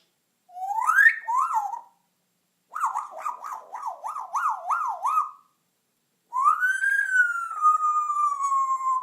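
African grey parrot whistling. First come two short rising whistles, then a warbling whistle whose pitch swings up and down rapidly about eight times, then one long whistle that rises and slowly falls away.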